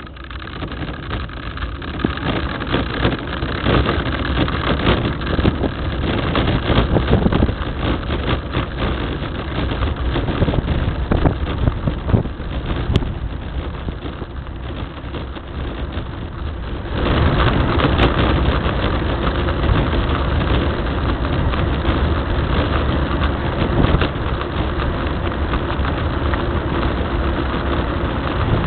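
Road and wind noise on board an engineless soapbox racer coasting downhill: its wheels rumbling and rattling over the asphalt with air rushing past, building as it gathers speed and jumping louder all at once about seventeen seconds in.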